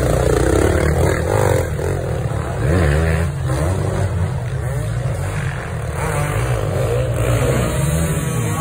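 Enduro motorcycle engines revving on a muddy forest trail: one bike passes close, and its revs rise and fall again and again as the rider works the throttle, with other bikes overlapping.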